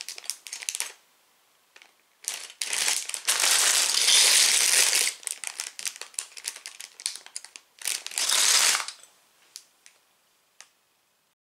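Sealed clear plastic bags of LEGO pieces crinkling as they are handled, with the bricks inside clicking against each other. The crinkling comes in two loud spells, from about two to five seconds in and again around eight seconds, with scattered small clicks between.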